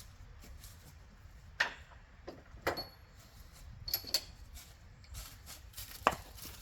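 A few separate knocks and metallic clinks of hand tools being handled and set down, some with a short high ring of metal.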